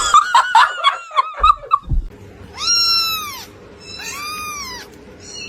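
A cat vocalising: a quick run of short chirping calls, then two long drawn-out meows that rise and fall in pitch.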